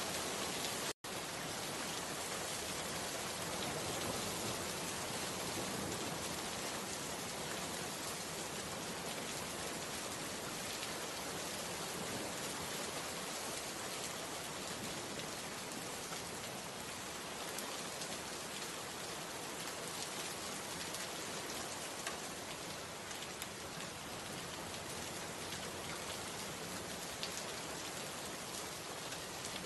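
Steady rain, an even hiss with faint scattered drops, cut off for a split second about a second in.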